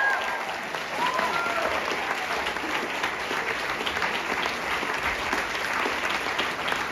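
Audience applauding, a dense, steady clapping that starts as a sung note fades.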